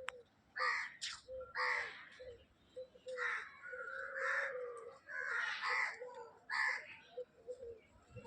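Repeated harsh bird calls, about a dozen in eight seconds, over a lower wavering call that keeps going between them.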